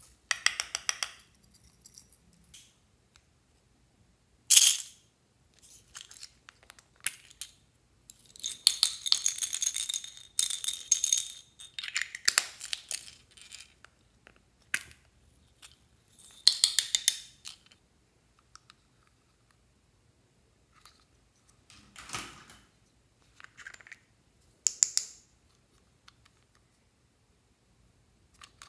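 Small plastic novelty containers clicking open and being shaken, rattling sprinkles, sequins and glitter out onto slime in a glass tray, in separate bursts with short pauses; the longest spell of rattling comes about a third of the way through.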